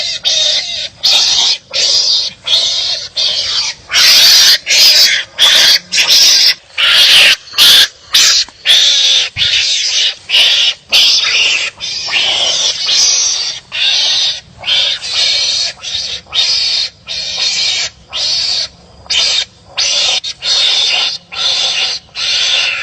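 Wild animals barking at each other in a fast, unbroken run of harsh calls, about two a second.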